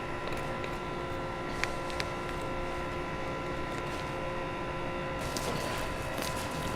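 Steady hum of machinery in a small room, with a couple of small clicks about a second and a half and two seconds in; the hum changes about five seconds in.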